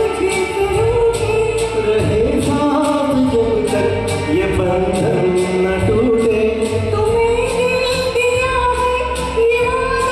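A woman and a man singing a Hindi film duet into microphones over backing music with a steady beat, their voices carrying long, gliding held notes.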